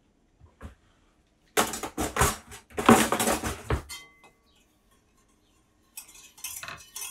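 Wire whisk scraping and clinking against the sides of a stainless steel saucepan as a roux is whisked. A spell of clattering starts about a second and a half in and lasts a couple of seconds, with a shorter one near the end.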